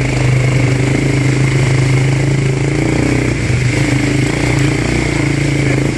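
Quad bike (ATV) engine running at a steady pitch while riding.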